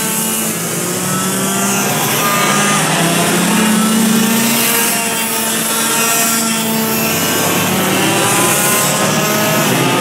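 Several two-stroke racing kart engines running together as the karts lap the circuit, their overlapping pitches rising and falling as each driver lifts and accelerates through the corners.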